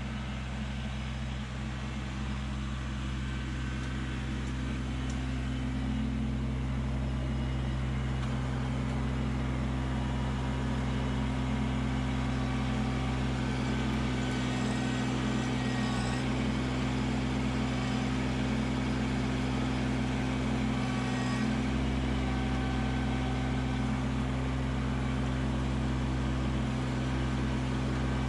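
Kubota LX2610 compact tractor's three-cylinder diesel engine running at a steady speed as the tractor drives up with its root rake grapple lowered.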